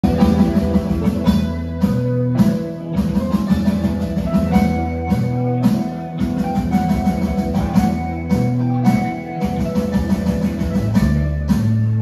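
Heavy metal band playing live: electric guitars over bass guitar and a drum kit, with sustained low riff notes changing every second or so under regular drum and cymbal hits.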